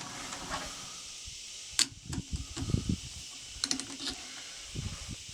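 Handling noises at a wood lathe: a few light clicks and soft knocks of tools and wood being handled, the sharpest click about two seconds in and a quick cluster near four seconds.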